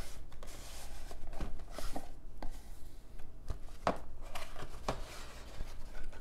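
Cardboard packaging being handled: a cardboard box sliding out of its paper sleeve, then its hinged lid flipped open, with scuffing, sliding and several sharp taps of card.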